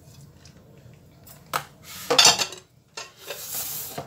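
Silicone spatula scraping and knocking against a metal pan while stirring a thick tomato and grated onion mixture. It is quiet for about a second, then comes a series of short scrapes and knocks, the loudest about two seconds in, and a longer scraping rasp near the end.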